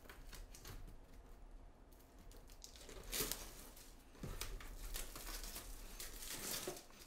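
Plastic shrink-wrap being picked at and peeled off a cardboard box, crinkling and tearing, with a louder rip about three seconds in and steadier crinkling after that.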